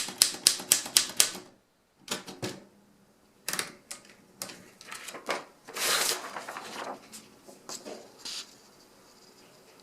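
Royal 10 manual typewriter being typed on: a quick run of key strikes, about five a second, then a pause and a few scattered clicks and mechanism noises. A longer rasping stretch comes around the middle, and the sounds die away before the end.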